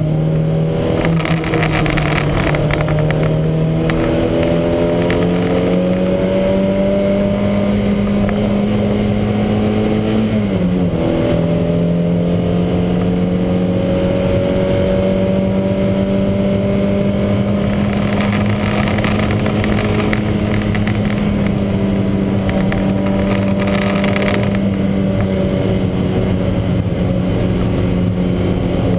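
Lancia Montecarlo race car's engine running hard at high revs, the note climbing slowly, then dropping briefly at a gear change about ten seconds in and holding steady after it. The car is racing with what is called a huge misfire.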